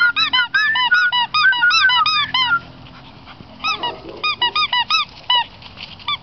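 Squeaky dog toy squeezed over and over: a quick run of short high squeaks for about two and a half seconds, a pause, then a slower string of single squeaks.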